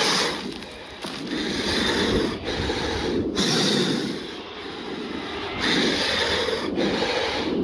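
Dinosaur sound effects: a run of low, breathy growls, each a second or two long, with short breaks between them.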